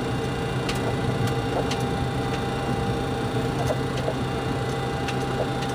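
Steady cockpit hum of an MD-80 with its Pratt & Whitney JT8D engines at idle as the jet rolls slowly onto the runway, with scattered light clicks and rattles.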